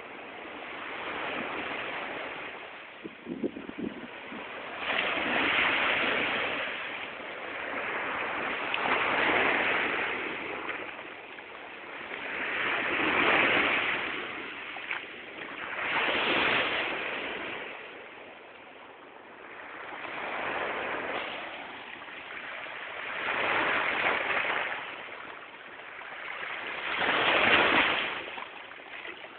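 Small waves breaking and washing up onto a sandy beach, the surf swelling and fading about every three to four seconds.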